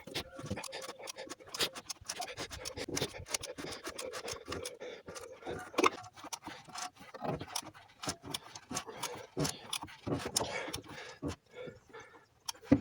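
Irregular metallic clicks, knocks and scrapes of a hand wrench turning a diesel engine over by hand.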